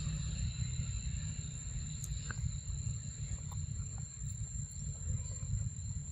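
Macaque chewing soft, ripe fruit right by the microphone, a low wet munching, over a steady high insect drone; a few small clicks come through.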